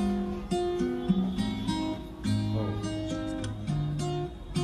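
Background music: acoustic guitar, plucked notes and strums in a steady run.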